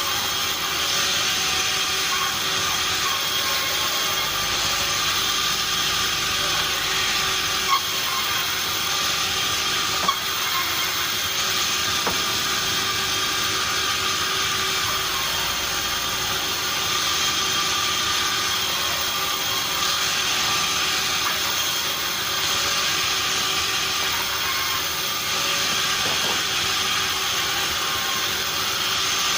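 Sawmill machinery running steadily with a constant high whine over a hiss, and two sharp knocks, about eight and ten seconds in.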